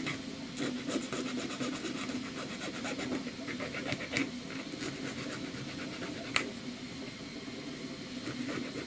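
A small file scraping in short, irregular strokes along the edges of a 3D-printed Colorfabb XT plastic mount, cleaning off stringing, with one sharper click a little past the middle. A 3D printer whirs steadily in the background.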